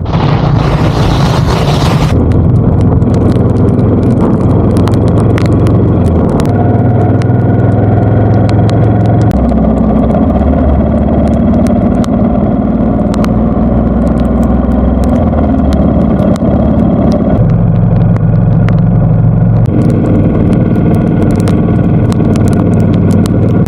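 Royal Enfield Bullet 350's single-cylinder engine running while riding, its note stepping up and down several times as the speed and gears change, with wind noise on the microphone for the first two seconds.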